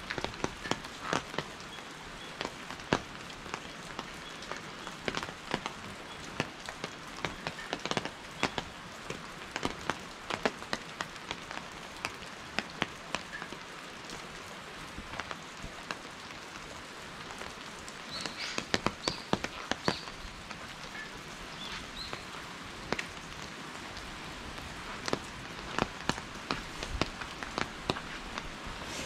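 Steady rain falling, with many irregular raindrops tapping close by.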